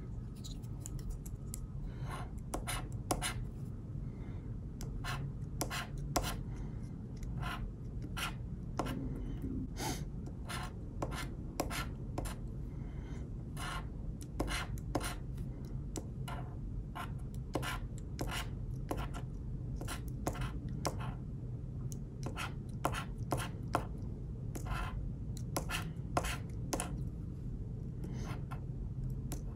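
A metal pointed scratching tool scraping the coating off a paper scratch-off lottery ticket in short, irregular strokes, about two or three a second. The strokes begin about two seconds in.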